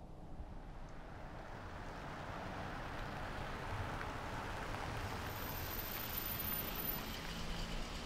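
An SUV driving up and pulling to a stop; its engine and tyre noise grow gradually louder as it approaches.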